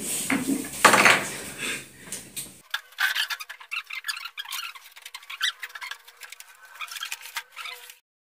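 Hands handling an LED TV panel's metal frame and plastic edges: a dense run of small clicks, taps and scrapes. A brief burst of voices and laughter comes first.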